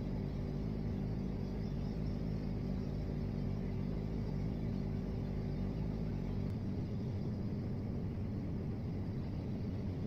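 A steady low hum and rumble with several held tones in it. The deepest part of the rumble drops away about six and a half seconds in.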